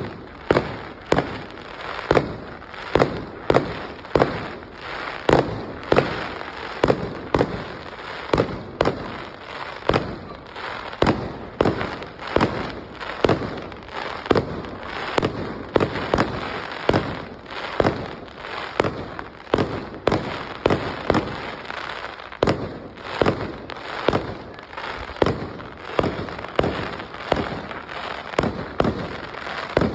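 Fireworks going off in a continuous barrage: sharp bangs about two a second, with crackling hiss between them.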